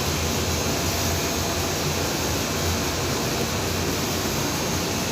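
Generator set running with a steady, even drone.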